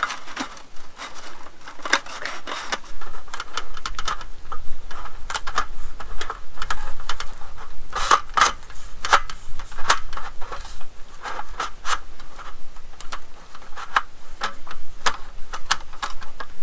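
Aluminum slats of a GSI Outdoors Macro roll-up camp table clicking, rattling and scraping as the support rods are twisted and fed through the panels. Irregular metallic clicks come several a second, more densely after the first few seconds.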